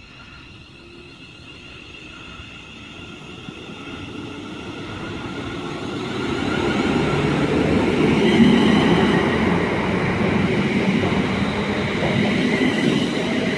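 A London Midland Class 350 Desiro electric multiple unit pulling out of the station. It grows louder over the first several seconds, then holds steady: a rumble of wheels and running gear with a whine of several steady high tones above it.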